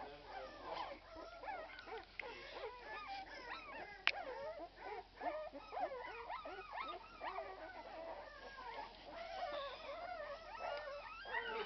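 A litter of 12-day-old Irish red and white setter puppies whimpering and squeaking over one another in a continuous chorus of short, wavering cries, with a single sharp click about four seconds in.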